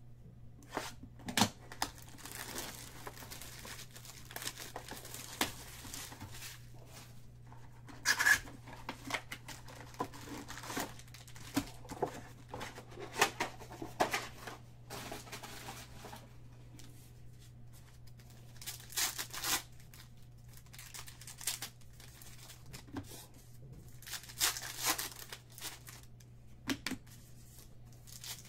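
Foil trading-card packs and their box packaging being torn open and crinkled by hand, in irregular short rips with pauses between.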